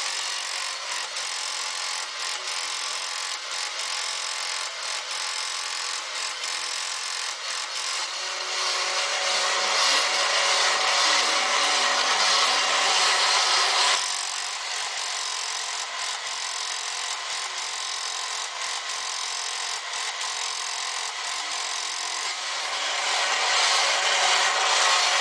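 Motorized Super Explorer toy robot whirring and grinding through its plastic gears as it walks. It gets louder about a third of the way in, drops suddenly a little past the middle, and rises again near the end.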